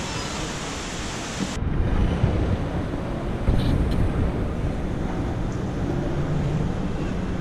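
Steady rushing hiss, like wind on an action camera's microphone, that cuts off abruptly about one and a half seconds in. It gives way to a lower, uneven rumble of wind and handling noise on the microphone, with a few faint clicks.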